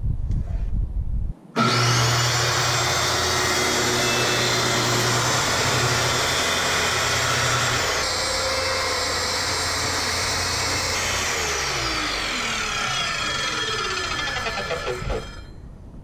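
Low rumble for about a second, then a corded SKIL circular saw starting with a rising whine and cutting through a wood panel. About eleven seconds in the trigger is released and the blade winds down over several seconds with a falling whine.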